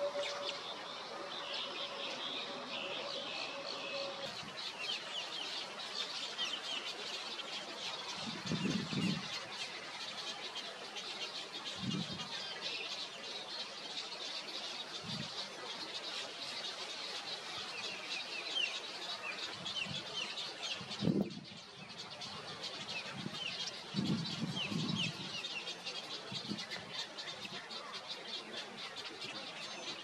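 Birds chirping and twittering throughout, with short low clucking calls several times, loudest about nine and again twenty-four seconds in. A faint steady tone stops about four seconds in.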